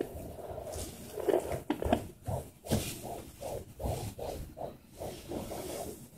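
A 16-week fetal heartbeat through the speaker of a Sonoline B handheld fetal Doppler: fast, evenly spaced whooshing pulses, a few a second, over steady static hiss. In the first two seconds there are scraping noises, before the beat comes through clearly.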